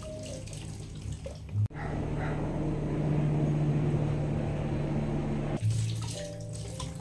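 Wall tap running into a stainless steel sink while dishes are washed by hand. About two seconds in, it cuts abruptly to a steadier, louder rushing sound with a low hum. The tap-and-washing sound returns near the end.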